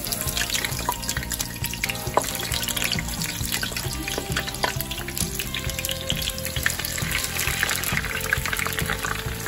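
Eggplant pieces deep-frying in oil at about 160 °C: a dense crackling sizzle that starts suddenly as the first piece goes in and keeps going as more pieces are added.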